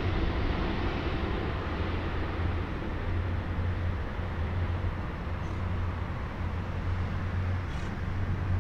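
Boeing 777-200 jet engines on final approach, a steady rumble and hiss that fades as the airliner flies away, its higher hiss dying off first.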